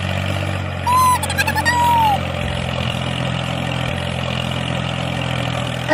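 Tractor engine idling with a steady low drone. About a second in comes a brief high whistling chirp that rises and falls twice.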